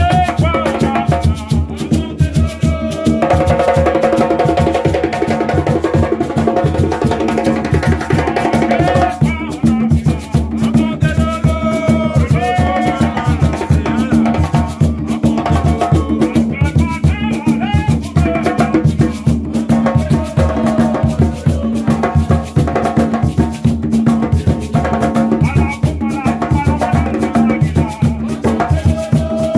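Gwo ka music: several ka hand drums played with bare hands in a steady, dense rhythm, with a calabash shaker rattling along. A man sings lead into a microphone over the drums.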